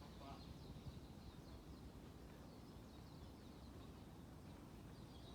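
Faint songbird chirps and twitters, scattered and high-pitched, over a steady low background rumble.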